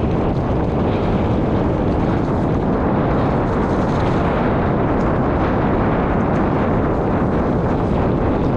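Steady wind buffeting on the microphone mixed with a continuous rumble and faint rattling clicks from riding fast downhill over rough ground.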